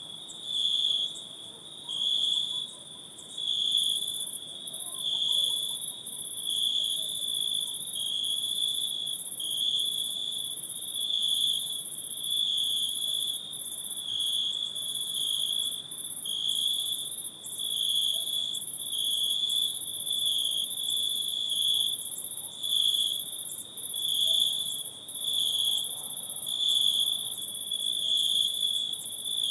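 Chorus of night insects in a forest: a shrill trill that swells and fades about once a second, with a second, higher-pitched buzzing joining about four seconds in.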